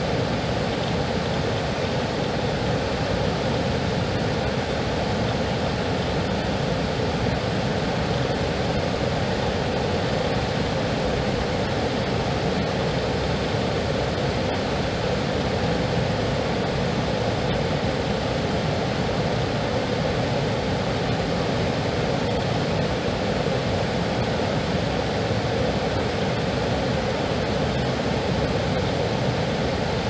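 Water pouring over a small concrete weir in a steady, unbroken rush.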